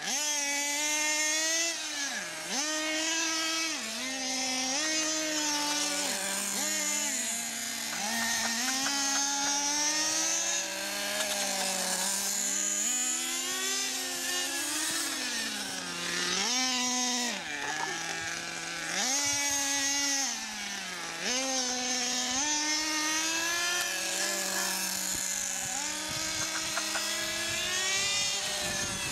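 Radio-controlled motorcycle's motor running, its pitch rising and falling over and over as the throttle is opened and closed through the turns.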